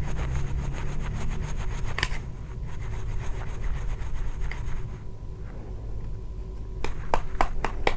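Block of bondon fishing-bait dough being grated on a flat stainless-steel hand grater: a quick run of rasping strokes for about the first two seconds, then fainter scraping, and a few sharp taps near the end.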